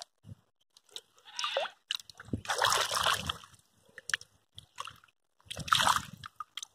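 Shallow muddy water splashing and sloshing in three irregular bursts as someone wades through it and reaches in to pick up stones, with small drips and plops between.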